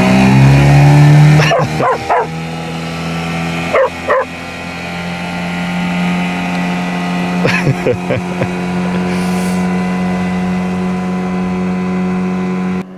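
A vehicle engine whose note drops at the start and then runs at a steady pitch, with short barks about two, four and eight seconds in. The engine stops abruptly near the end.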